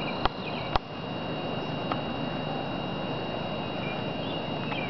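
Outdoor ambience: a steady high-pitched insect drone with a few faint bird chirps, and two sharp clicks in the first second.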